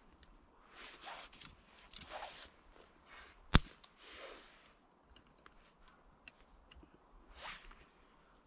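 Small damp sticks being handled and laid on a small tinder fire: several short rustles and crunches, and one sharp crack about three and a half seconds in, the loudest sound, like a twig snapping. Faint small ticks follow in the second half.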